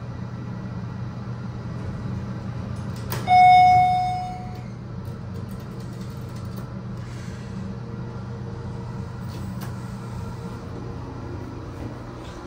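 Inside a TKE hydraulic elevator cab: a steady low hum from the car, broken about three seconds in by a single electronic chime that rings out and fades over a second or so.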